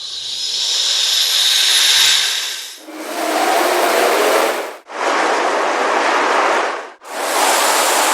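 A run of harsh, noisy horror jump-scare sound effects: a rising hiss, then three separate blasts of rasping noise, each about two seconds long and cut off sharply.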